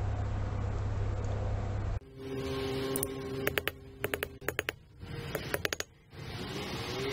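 Quick clusters of light, sharp metal clicks as small valve-train parts are handled and set on an aluminium cylinder head, over a steady background hum.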